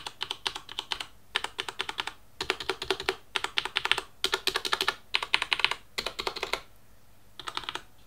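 Typing on a Corsair Vengeance K70 mechanical keyboard with Cherry MX Red linear switches, every key pressed fully down so that it bottoms out. The keys clack in quick bursts of several strokes each, with a short pause near the end.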